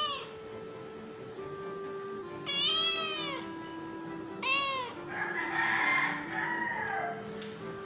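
Domestic cat meowing three times: a long meow about two and a half seconds in, a short one a second later, then a rougher, drawn-out meow, over soft background music.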